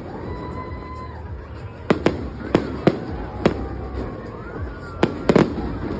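Aerial fireworks bursting: a string of sharp bangs, a pair about two seconds in, three more spread over the next second and a half, and a quick double crack about five seconds in, over a steady background rumble.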